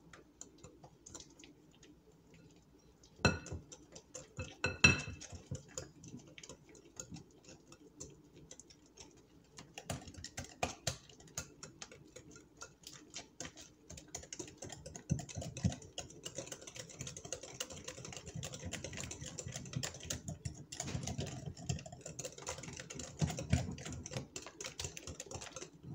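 Wire whisk mixing banana bread batter in a glass mixing bowl, its wires rapidly clicking and scraping against the glass. Two louder knocks come about three and five seconds in, and the clicking grows busier and steadier from about ten seconds in.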